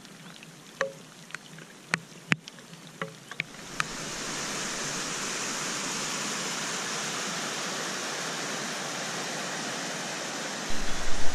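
Scattered sharp taps of raindrops, then about four seconds in the steady rush of a mountain stream cascading over rocks takes over. Low music comes in loudly just before the end.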